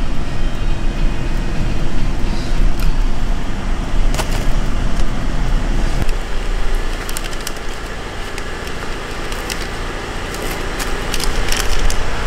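Garbage packer truck engine running steadily. In the second half there are sharp crackles of plastic garbage bags being handled.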